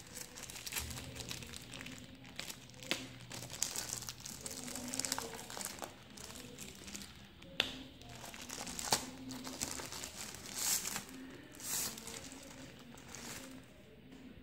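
Thin plastic protective wrap being crinkled and peeled off a power bank by hand: irregular crackling with a few sharper snaps, dying down near the end as the wrap comes free.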